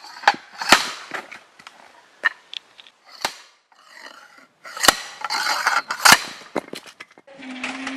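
A manual impact log splitter being raised and driven down onto a log, giving about seven sharp metallic strikes at irregular intervals as it works through the wood. Near the end a steady low hum starts.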